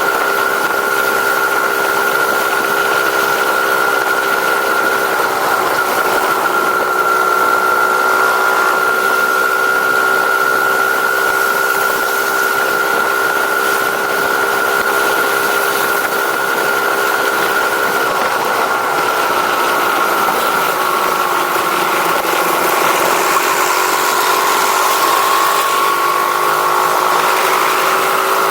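Vehicle engine on its stock exhaust running at a steady speed. Its pitch sags slightly past the middle and recovers near the end.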